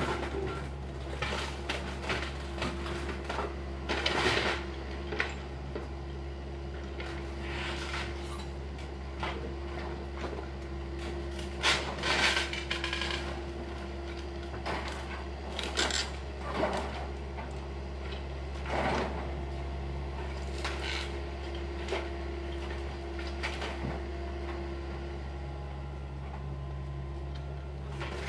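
Demolition of a wooden house by a hydraulic excavator: its engine runs steadily under scattered knocks, cracks and clatter of timber debris being broken and loaded, with louder crashes about 4, 12, 16 and 19 seconds in.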